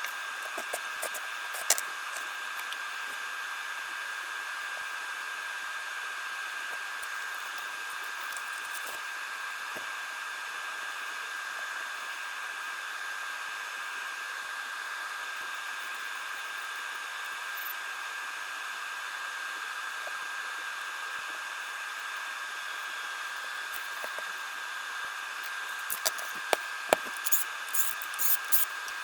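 Charging equipment running during a lithium-ion battery balance charge: a steady fan-like hiss with a thin, even high whine. A few sharp clicks and taps come near the end.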